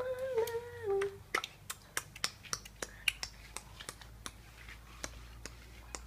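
A voice hums a few notes for about the first second. Then comes a quick, irregular run of sharp clicks, about five a second.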